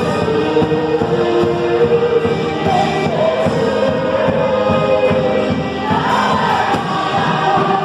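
A worship band playing a song, with voices singing together over a steady beat.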